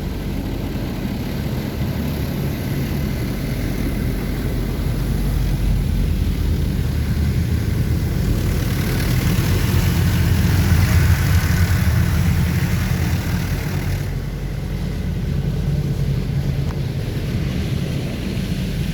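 Oasis Typhoon automatic car wash working over the car, heard from inside the cabin: a steady low rumble of machinery with the hiss of water spray on the body. The spray grows louder towards the middle and eases off after about fourteen seconds.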